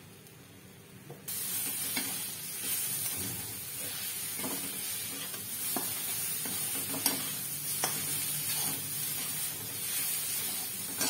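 Grated cabbage and carrot stir-frying in a kadhai: a steady sizzle, with a metal spatula scraping and clicking against the pan now and then. The sizzle starts suddenly about a second in.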